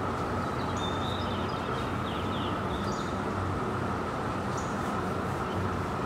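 Outdoor dawn ambience: a steady low rumble with a constant hum, and a bird giving a short high call about every two seconds, with some brief twittering about a second in.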